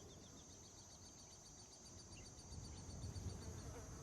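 Faint outdoor nature ambience: a steady high insect hum with a rapid run of short high chirps, about six a second, that fades out near the end.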